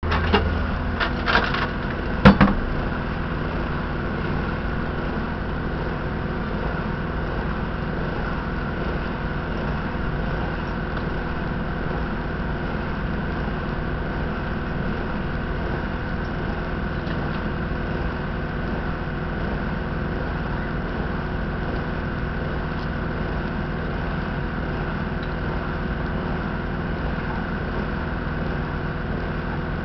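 An engine idling steadily, an even mechanical hum, with a few sharp knocks in the first couple of seconds.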